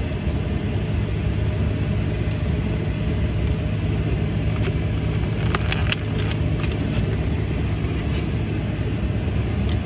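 Steady low hum of a car idling, heard from inside the cabin, with a few brief clicks and rustles about five to seven seconds in.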